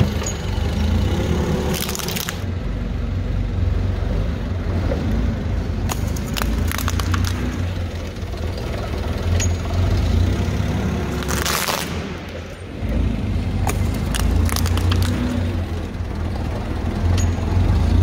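Forklift engine running with a steady low rumble as the truck moves slowly, broken by several brief bursts of hiss.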